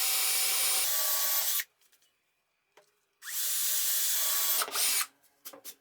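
Power drill running as it bores pivot holes in a plywood strip, in two spells: the first stops about a second and a half in, the second starts about three seconds in and stops near the end.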